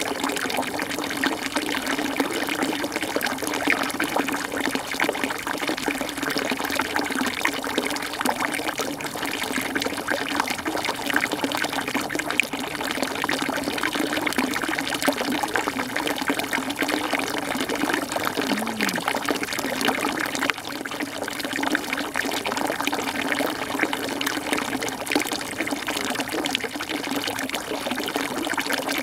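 Steady rush of running water, an unbroken even hiss.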